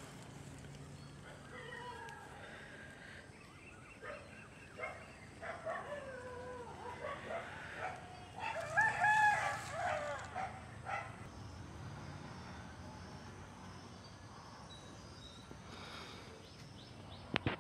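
A series of animal calls, pitched and wavering, loudest about nine seconds in. A few sharp knocks come right at the end.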